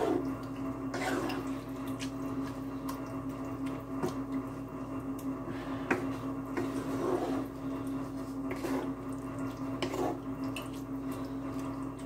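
Wooden spoon stirring thick sausage-and-onion meat sauce in a skillet: irregular wet squishing and scraping strokes, over a steady low hum.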